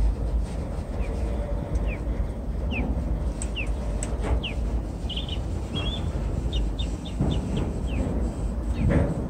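Small birds chirping: a string of short, down-sweeping notes, then quicker, higher chirps in the second half, over a steady low rumble from a long freight train rolling across a girder rail bridge.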